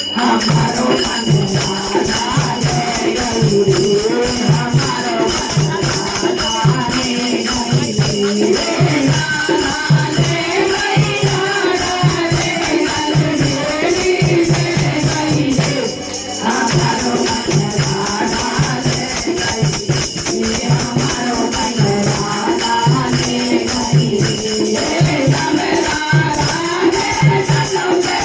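Music: a sung melody over a steady drum beat with rattling shaker-type percussion, briefly dropping about 16 seconds in.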